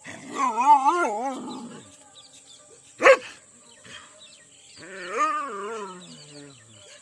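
Dogs fighting: two long, wavering, quivering calls, the second falling in pitch at its end, with one short sharp bark about three seconds in.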